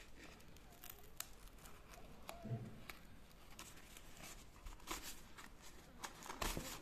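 Taped cardboard packaging being torn and cut open by hand, faint scattered rips and crackles that get busier near the end.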